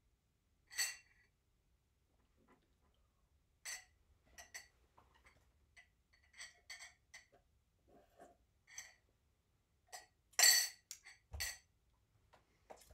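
Ice clinking in a drinking glass as it is tipped back to drink: a scattered series of short, bright clinks, the loudest rattle about ten seconds in, then a soft knock as the glass is set down on the table.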